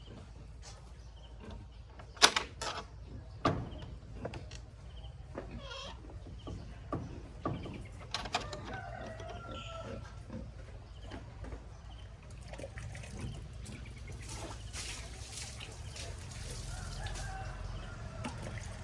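Chickens clucking now and then, with several sharp knocks and taps, the loudest a little over two seconds in and again at three and a half seconds.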